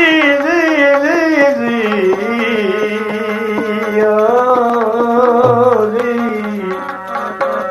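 Gujarati devotional bhajan music: an ornamented melody whose pitch bends and wavers, over a regular tabla beat.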